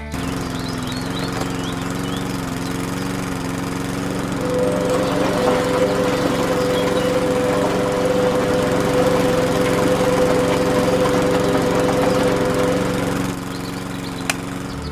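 A small motor running steadily with a humming whine. From about four seconds in it gets louder and rougher, with a grinding rattle, then eases back near the end.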